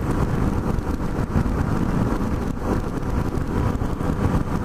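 Wind rushing past a helmet-mounted microphone over the steady running and road noise of a Yamaha FJ-09 motorcycle cruising at about 65 km/h.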